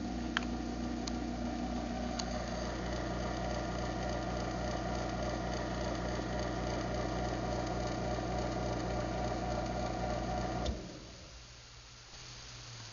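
Craftsman half-horsepower garage door opener running an opening cycle: a click as the motor starts, a steady motor hum, then the motor stops about ten and a half seconds in.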